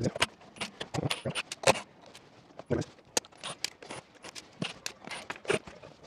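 Irregular clicks, knocks and light scrapes as a small electric water heater is handled: a cordless impact driver set down, the heater stood upright and its top cover worked loose by hand.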